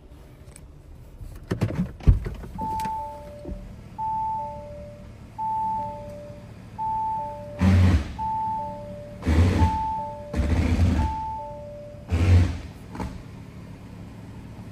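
A Lamborghini Urus's cabin warning chime: a two-tone ding-dong, high note then low, repeating about every second and a half, seven times over, then stopping. A few sharp knocks come just before it starts, and several loud bursts of rustling rumble cut across its later part.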